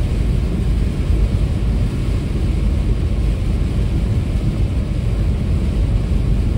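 Steady car interior noise at expressway speed in heavy rain: a low rumble of tyres on the wet road with wind and rain noise over it.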